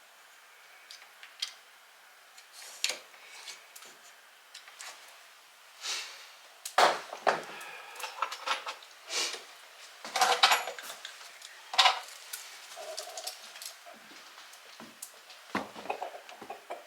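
Irregular clicks, clinks and knocks of tools and metal door hardware being handled during installation of a door knob set and window insert, with a few scraping sounds, busiest around the middle.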